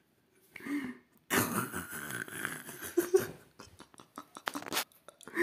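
A person's voice making a long, rasping non-speech sound, then a quick run of short clicks.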